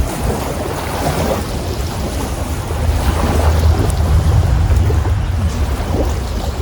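Strong wind buffeting the microphone: a steady low rumble that swells for a couple of seconds in the middle, over a hiss of wind and moving water.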